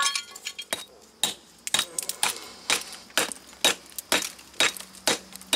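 Hammer striking a cracked concrete patio slab about twice a second, sharp clinking knocks as loose and rotted concrete is chipped out of the crack before patching.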